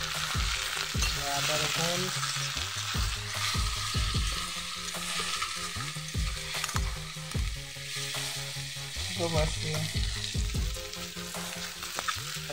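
Potato and onion pieces sizzling in oil in a metal kadai, stirred with a metal spatula that scrapes and knocks against the pan again and again.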